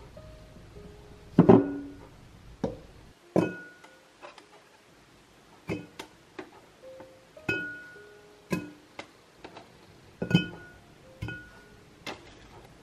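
Light plucked-string background music, mixed with a series of thuds and glass clinks as lime wedges drop into a glass carafe.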